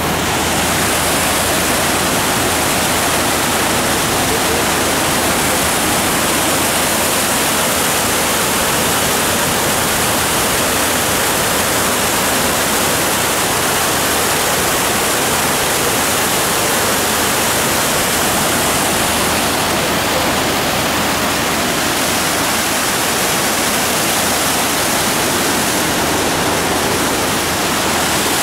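Storm-swollen creek in full flood, its fast current rushing loudly and steadily.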